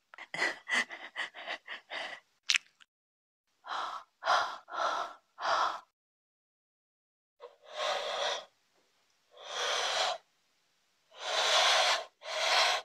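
A person's breathy vocal sounds: a quick run of short breaths at the start, then four more, then several longer drawn breaths in the second half.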